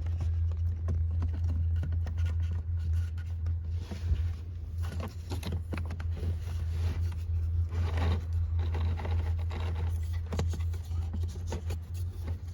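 Scraping and rustling as a new pleated cabin air filter is slid into the plastic filter housing of a 2015 Ford Fusion, in irregular short strokes over a steady low hum.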